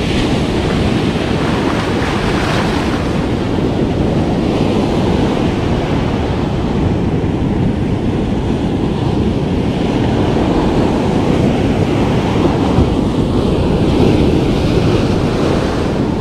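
Strong ocean surf: waves breaking and foaming water rushing up and draining back over the sand close by, a continuous loud wash of noise.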